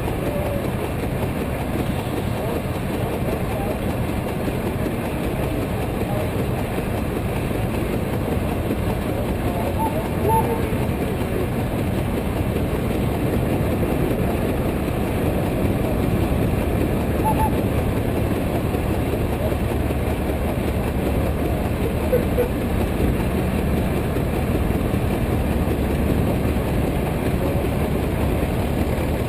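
Case 110 hp steam traction engine running belted to a brake, its exhaust chuffing steadily from the stack along with the clatter of the engine's working parts.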